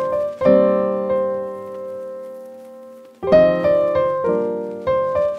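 Background piano music: struck chords that ring and slowly fade, one long chord dying away over about three seconds before new notes come in.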